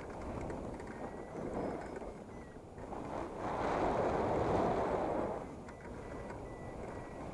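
Wind rushing over the microphone of a hang glider in flight, swelling louder for about two seconds around the middle. A few faint, short, high beeps sound alongside it.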